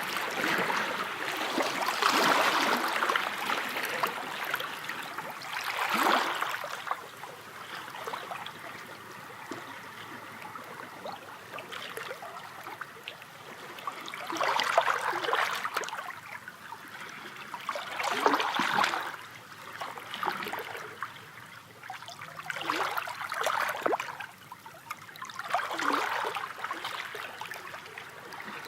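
Sea waves washing in: a splashing surge every few seconds, with quieter water noise between.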